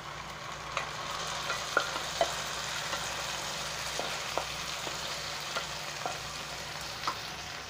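Onions frying in oil in a nonstick pan, sizzling steadily, as mashed soaked chana dal is tipped in and spread with a spatula, with a few light clicks of the spatula against the pan.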